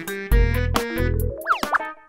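Bouncy cartoon background music with pulsing bass notes and steady chords, and a short sliding note about one and a half seconds in.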